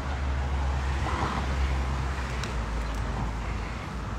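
Road traffic: the steady low rumble of passing cars, swelling in the first half and easing off near the end.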